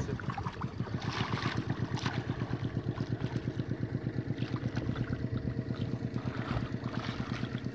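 Small boat outboard motor running at idle with a rapid, even pulse, with a few splashes over it as a hooked wels catfish thrashes at the surface beside the boat.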